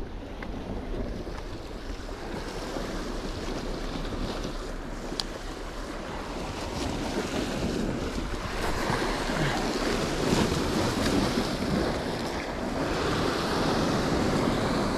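Sea surf breaking and washing over coastal rocks, with wind buffeting the microphone; it grows louder after about seven seconds. A single short click about five seconds in.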